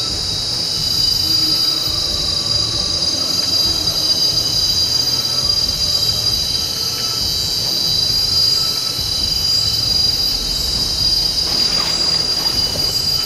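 A shrill tropical insect chorus holding one steady high tone over a low hiss, with a short noisier scuffle near the end.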